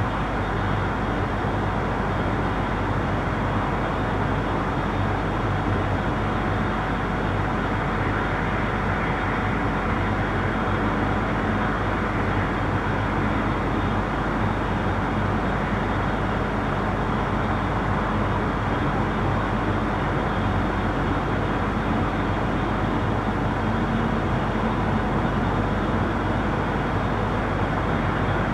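Steady wash of distant traffic on a city street at night, a continuous rumble with no single vehicle standing out, with a faint steady hum underneath.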